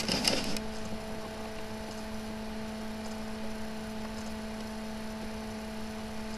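Steady electrical hum with a faint hiss, and a few short clicks in the first half second.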